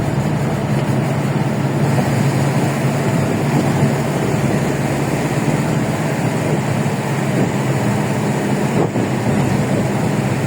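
Steady drone of a vehicle driving at constant speed: a low engine hum under even road and wind noise.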